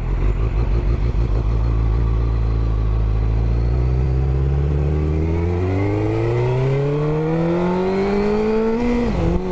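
2002 Suzuki GSX-R750's inline-four engine pulling away under acceleration, its pitch climbing steadily for about nine seconds, then dropping suddenly near the end as the revs fall.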